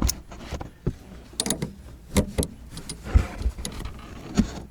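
Irregular metallic clicks and clanks of a wrench tightening the nut on the top mount of a rear shock absorber.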